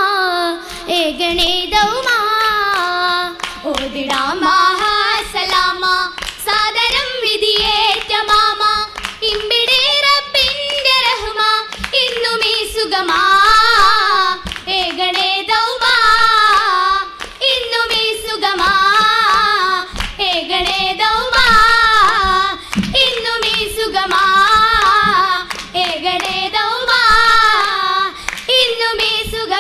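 Oppana: voices singing a Mappila song in chorus, with the dancers' rhythmic hand-clapping keeping time throughout.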